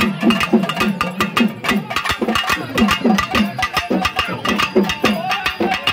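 Pambai, a pair of Tamil folk drums beaten with sticks, played fast and continuously. Crisp stick strokes come several times a second over deep drum notes that bend in pitch.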